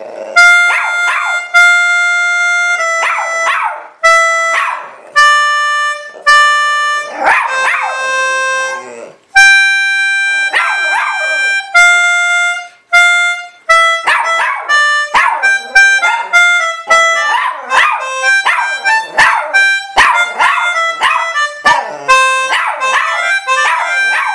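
A poodle singing along to organ music in high, wavering howls. The organ plays held notes in a slow melody, and the dog's voice breaks in between and over the notes, more and more often in the second half.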